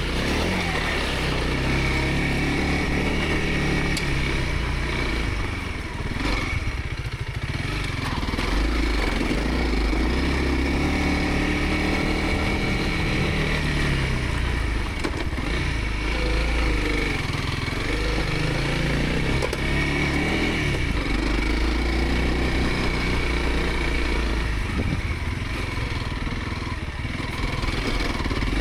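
Dual-sport motorcycle engine running on a dirt trail, its pitch rising and falling again and again with the throttle.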